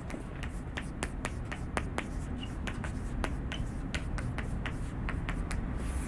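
Chalk writing on a blackboard: a run of quick, sharp taps and short strokes, irregularly spaced at roughly four a second, over a low steady room hum.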